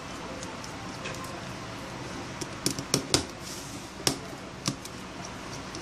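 Small sharp clicks and taps of fingers handling the plastic and metal internal parts of an opened Samsung Galaxy Tab 2 tablet, about half a dozen of them clustered in the middle, over a faint steady hiss.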